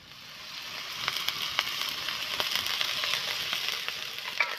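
Chopped lotus stems sizzling as they stir-fry in a pan, with scattered crackles and pops. The sizzle fades in over the first second and fades out at the end.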